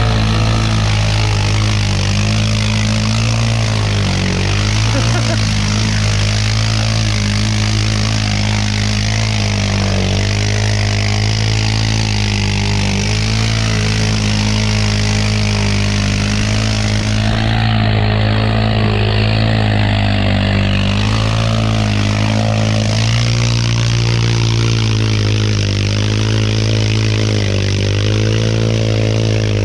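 ATV engine running at a fairly steady speed, with small rises and dips in pitch.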